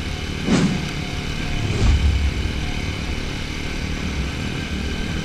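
TVS Apache 200 4V's single-cylinder engine running steadily while the motorcycle rides over a dirt road, with two short thumps about half a second and two seconds in.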